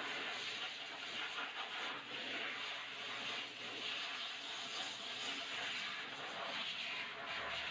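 Pet force dryer blowing air through its hose onto a wet dog's coat: a steady hiss of air.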